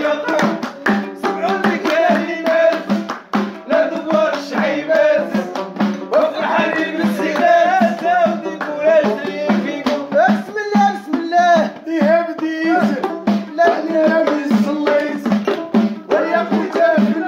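Moroccan folk music: a man singing over a fast, steady beat of hand percussion, with bowed violin and long-necked lute accompaniment.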